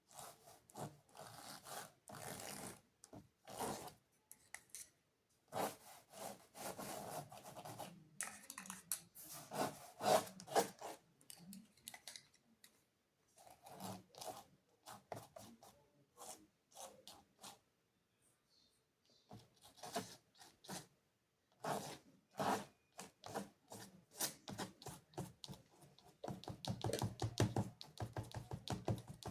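Paintbrush rubbing and scrubbing across the painting in short irregular strokes, with brief pauses, and a quicker run of dabbing strokes near the end.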